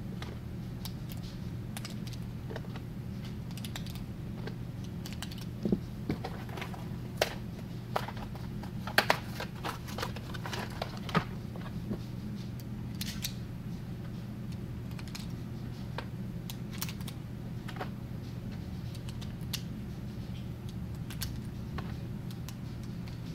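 9mm cartridges being pressed one at a time into a pistol magazine: scattered sharp metallic clicks and rattles, busiest in the middle, over a steady low hum.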